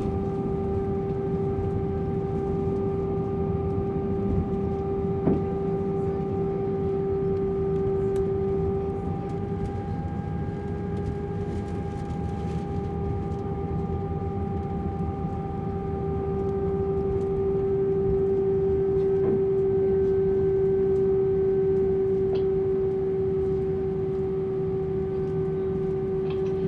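Airbus A320 cabin noise while the plane is on the ground after landing: jet engines running with a low rumble and a steady high whine. There is one short click about five seconds in.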